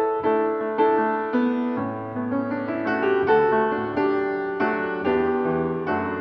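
Solo piano music: chords struck about once or twice a second, each ringing and fading, with lower bass notes joining about two seconds in.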